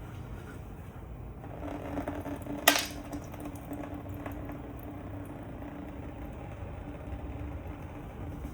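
Coolant trickling slowly out of a GPU's AIO radiator into a bucket, a faint steady sound that starts a couple of seconds in, with one sharp click just before the three-second mark.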